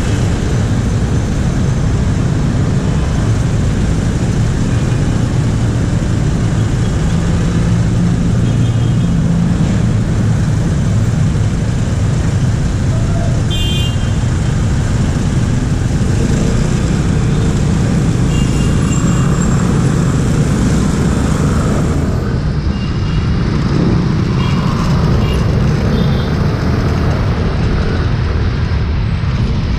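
Motorcycle engine and surrounding street traffic heard from a camera on the bike, a loud steady low rumble, with a few short vehicle horn toots. About two-thirds of the way in the sound changes as the motorbike moves off.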